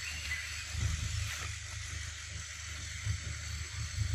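Outdoor forest ambience: a steady high hiss with an uneven low rumble of wind buffeting the microphone.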